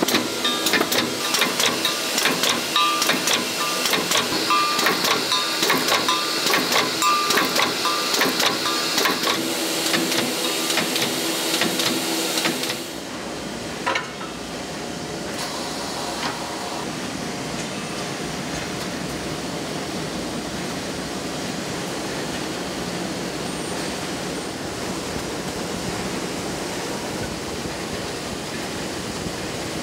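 Automated oil filter production machinery: a fast, dense clatter of small mechanical impacts with short repeated high tones, changing abruptly about 13 seconds in to a steady machine hum with a single click soon after.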